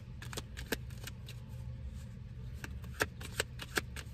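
Tarot cards being shuffled by hand: a run of quick, irregular card snaps and clicks, thickest near the end.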